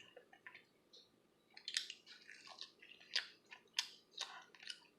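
Close-miked chewing of barbecue pork ribs: faint, irregular wet smacks and chews, about ten in a few seconds.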